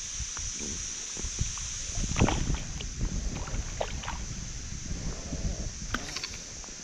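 Lake water sloshing and splashing right at the microphone as a landing net is held in the surface, with a run of irregular small splashes, loudest about two seconds in.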